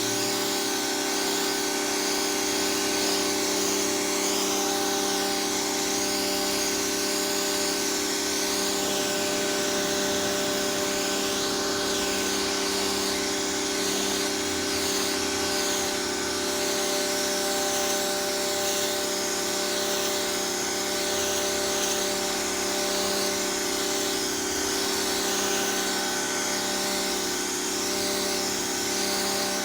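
Pressure washer running steadily, its motor humming under the hiss of the high-pressure water jet.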